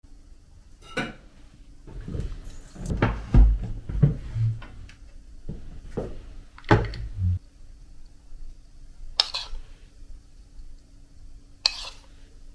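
Tableware being handled on a wooden tray: a series of knocks, thuds and clinks as dishes and a glass are set down, then two short scraping sounds near the end.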